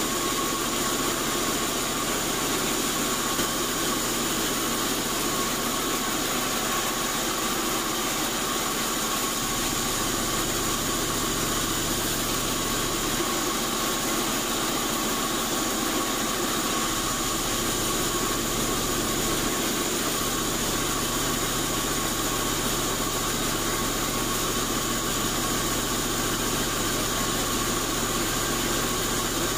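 Large vertical band sawmill running steadily, its blade sawing lengthwise through an old acacia beam on the log carriage. A constant machine noise with steady held tones, no breaks or changes.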